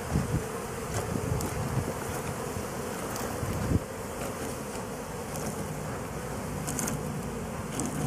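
Honey bees buzzing in a steady hum over the open hive's top bars, with a single low thump about three and a half seconds in.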